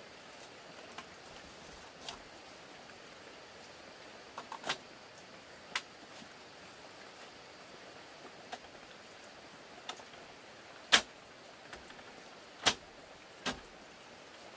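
Scattered sharp clicks and knocks of dry bamboo slats as a woven bamboo shelf panel is pressed and shifted on its bamboo frame, about eight in all, the loudest a little past halfway. A steady hiss lies underneath.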